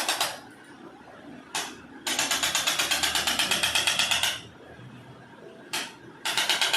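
Handheld electric percussion device firing rapid thrusts, about ten a second, in bursts of about two seconds. A single click comes just before each new burst.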